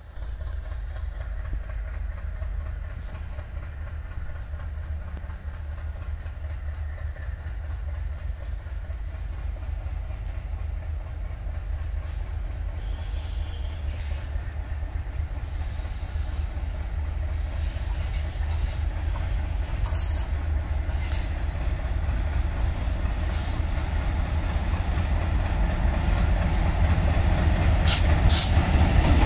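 A pair of Indian Railways diesel locomotives hauling an express train approaches, its low engine rumble growing steadily louder as it draws near.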